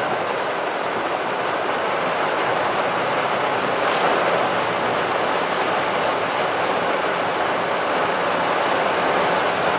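Heavy rain falling steadily on a car's roof and windscreen, heard from inside the closed cabin.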